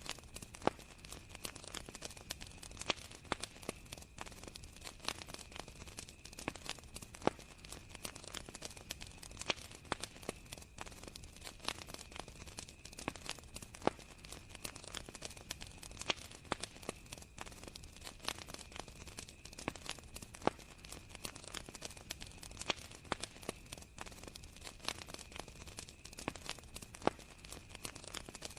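Wood campfire crackling, with frequent sharp pops at irregular intervals, some much louder than others, over the steady high-pitched chirring of crickets.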